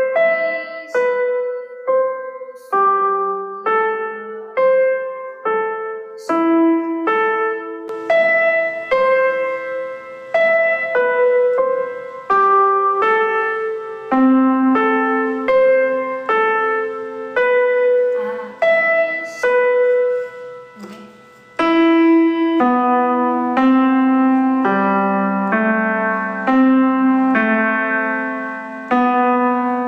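Background piano music: a simple melody in separate, evenly paced notes.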